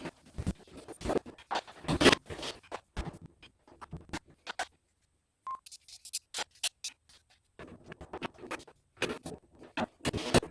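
Wooden closet-organizer drawer parts being handled and fitted together: irregular knocks, clicks and scrapes, stopping briefly near the middle before starting again.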